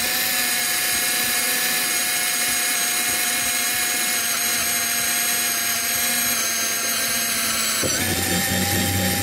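Cordless drill running steadily under load, boring a mounting hole for a pedal cover, its battery nearly flat; the motor's pitch shifts about eight seconds in.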